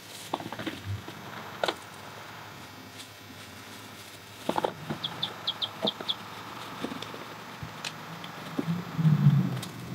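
Leafy cut branches being gathered and loaded by hand: scattered knocks, crackles and rustles. About five seconds in, a bird gives a quick run of about six high chirps. Near the end comes a heavier thump, the loudest sound.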